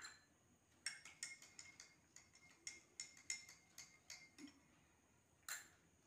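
Faint clinking of a metal spoon against a drinking glass as salt is stirred into water, a quick run of light clinks for about three seconds. Near the end comes one sharper clink as the spoon is put down in a small glass bowl.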